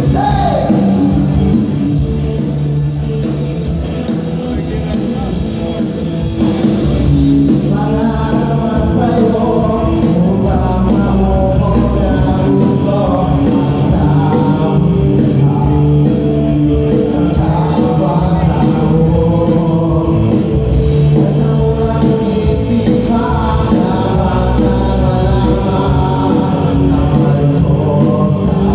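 Live band playing amplified dance music over the PA, with a singer and a steady bass and drum beat.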